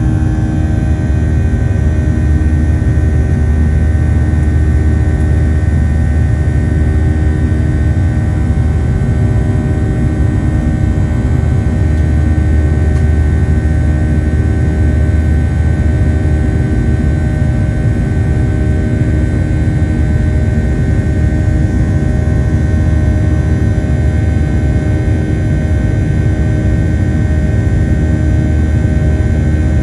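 Boeing 737-800's CFM56-7B turbofan engines heard inside the cabin from a window seat over the wing during the climb after takeoff. It is a loud, steady drone with a low rumble and a constant high whine.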